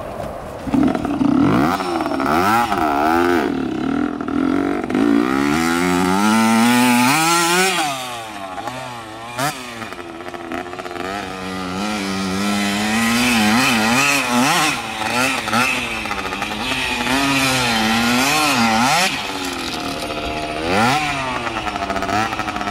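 1983 Honda CR50's 50cc two-stroke single-cylinder engine catches about a second in, then revs up and down over and over as the minibike is ridden around a dirt track.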